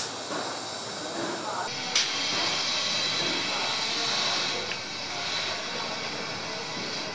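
Car assembly-line workshop noise: a steady hiss that grows stronger from about two seconds in and fades after about five seconds, with a sharp click at the start and another about two seconds in.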